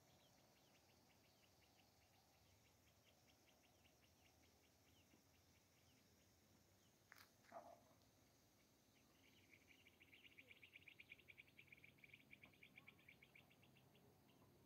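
Faint insect chirring in rapid, even pulses, loudest from about nine to thirteen seconds in. About seven seconds in there is a single click and a short falling sound.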